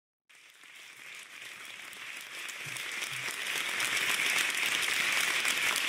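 Audience applauding, fading in and growing steadily louder.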